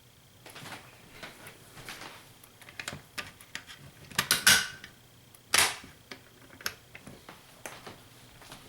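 Irregular clicks and knocks, the loudest a little past four seconds in and again at about five and a half seconds, over a faint steady high tone.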